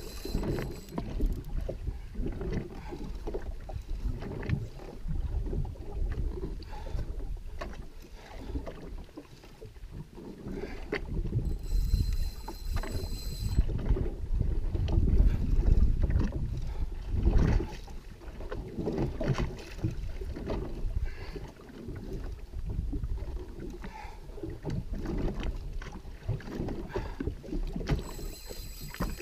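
Wind buffeting the microphone and sea water sloshing against a drifting jet ski, with no engine heard. Three short high-pitched whirs cut through: one at the start, one about twelve seconds in, and one near the end.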